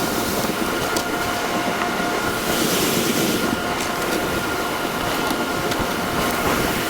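Harvest machinery running steadily under load, a constant mechanical din with a high, steady whine over it.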